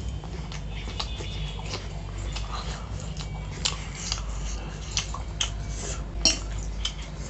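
Metal fork clinking and scraping against a ceramic plate of pasta, a scatter of sharp clinks, the loudest about six seconds in.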